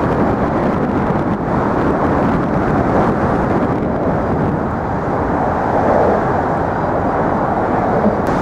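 Loud, steady rumble of traffic crossing the Manhattan Bridge, heard from the bridge's walkway.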